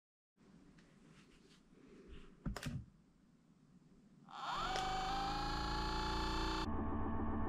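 A couple of clicks, then a RENPHO percussion massage gun's motor starts a little past halfway with a short rising whine and settles into a steady buzzing hum.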